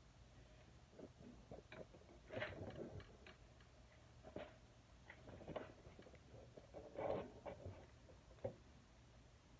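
Hand tools and small engine parts clicking and clinking on a mini bike engine during teardown: irregular light ticks, with louder clatters about two and a half and seven seconds in.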